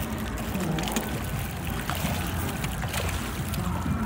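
Water splashing and slapping as a crowd of fish thrashes at the surface to feed, with many small splashes over a low steady rumble.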